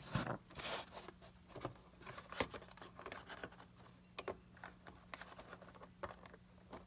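Small clicks, taps and scrapes of a diecast HO scale model excavator being handled in the fingers and set on model railroad track. There is a sharper click about two and a half seconds in.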